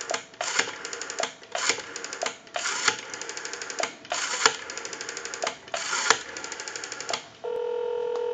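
Rotary dial of a Western Electric 302 telephone dialing out by pulses: digit after digit, each a quick run of evenly spaced clicks as the dial returns, with short pauses between digits while the dial is wound. Near the end a steady ringback tone comes over the line as the dialled number rings.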